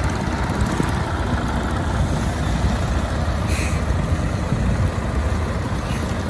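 Diesel engine of a Volvo FH truck running at low revs as the loaded rig creeps forward slowly, a steady low rumble with a brief hiss about halfway through.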